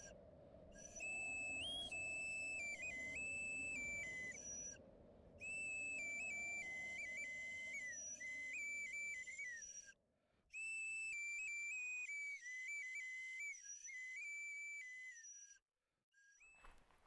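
A high, pure whistled melody in four long phrases, each a run of held notes that step up and down in pitch, with short breaths between them; it ends a little before the close.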